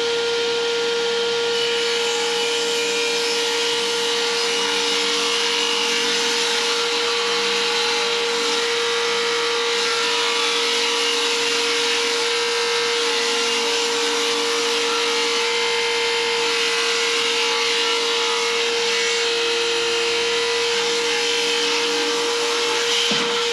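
Small benchtop table saw running with a steady whine while ripping a long iroko plank along its length, the blade cutting through the wood.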